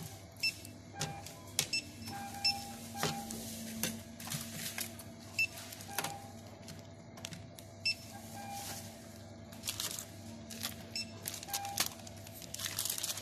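Supermarket checkout: a barcode scanner gives short beeps at irregular intervals as items are scanned, over the clatter of packets, a bottle and cans being set down on a steel counter.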